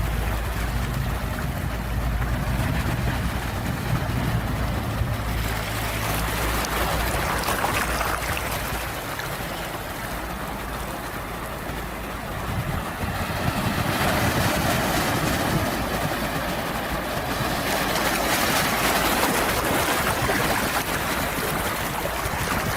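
Ocean waves washing ashore, the surf swelling and easing over several seconds at a time, with a low rumble in the first few seconds.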